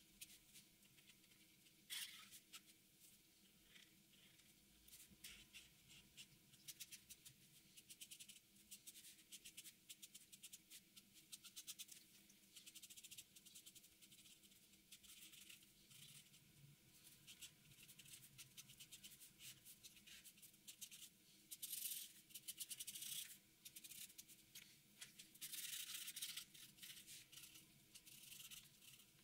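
Black marker pen scratching faintly on paper in quick, irregular strokes, with louder runs of strokes about two seconds in and again near the end.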